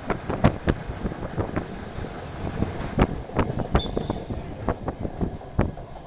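DR1AMv diesel multiple unit heard from inside the carriage while moving: its wheels knock over rail joints in quick, irregular clacks. A brief high-pitched squeal comes about four seconds in.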